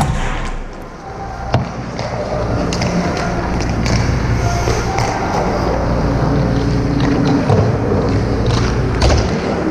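Ice hockey skates scraping and gliding on the ice, with sharp stick-and-puck knocks about a second and a half in and again near the end, over a steady low hum.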